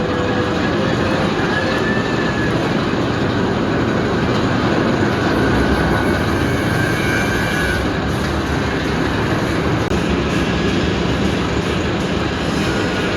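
Mako steel roller coaster train running along its track: a steady, loud rumble that swells slightly about halfway through.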